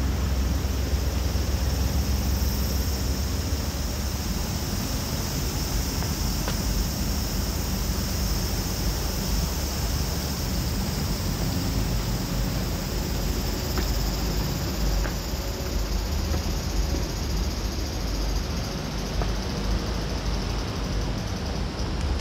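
Steady outdoor background noise: a low rumble with an even high hiss above it, and a few faint ticks.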